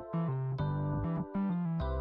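Background music led by an electric piano or keyboard, with a steady bass and notes changing every half second or so.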